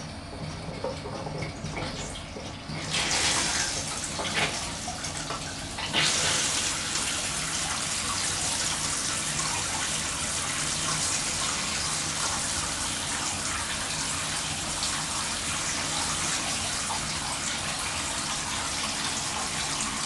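Water running into a bathtub: a short gush about three seconds in, then from about six seconds in a steady stream that starts suddenly and keeps running.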